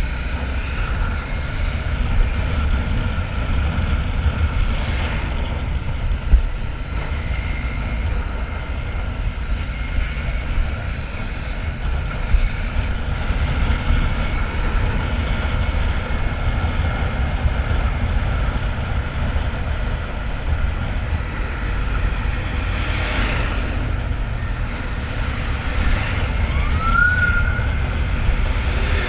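Royal Enfield Shotgun 650's parallel-twin engine running steadily under way, with wind noise over the microphone and a steady high whine.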